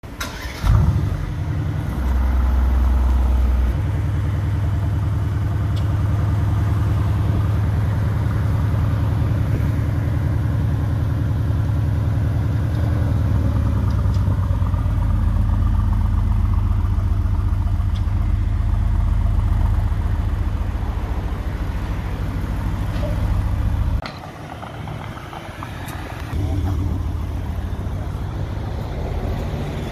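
Mercedes-AMG GT R Roadster's twin-turbo V8 starting with a loud flare under a second in, then idling with a deep, steady sound. About 24 s in it goes quieter, and a couple of seconds later it rises again as the car pulls away at low speed.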